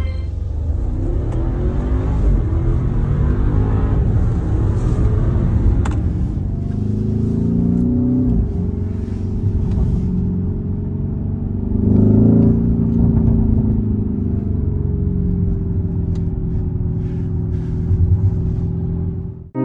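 Luxury SUV engine accelerating over road and tyre noise: the engine note climbs, drops back about eight seconds in, and climbs again around twelve seconds.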